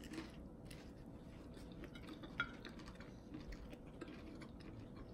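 A person quietly biting and chewing a chicken wing, with faint scattered mouth clicks and one sharper click about two and a half seconds in.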